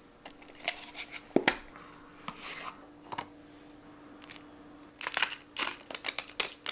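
Light kitchen handling sounds, a few scattered clicks and knocks from containers and utensils, then a hand-turned salt-and-pepper mill grinding over the glass of yogurt in a quick run of crunching clicks for about a second and a half near the end.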